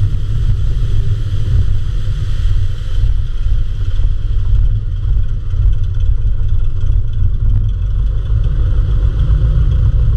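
Floatplane's piston engine and propeller running steadily as the plane taxis on the water, a loud, even low rumble.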